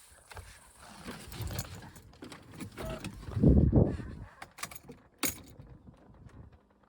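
Hands and tools at work on a car: scattered clinks and knocks, a heavier dull thump about three and a half seconds in, and a sharp click a little past five seconds.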